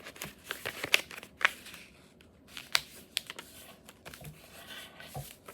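Sheet of printer paper being folded and creased by hand: irregular crinkles and sharp little crackles, with a few soft rubbing passes between them.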